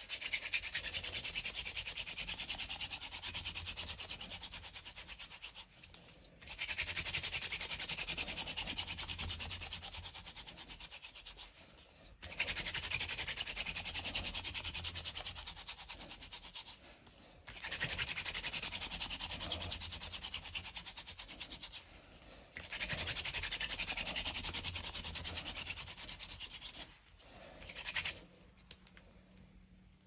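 Hand-drill fire-making: a wooden spindle spun fast back and forth between the palms, its tip grinding into a wooden hearth stick with a rapid scratchy rubbing. It comes in five long bouts, each loudest at the start and fading, with brief breaks between them, then a short last burst near the end. The friction is grinding out hot wood dust to make an ember, and smoke is rising by the end.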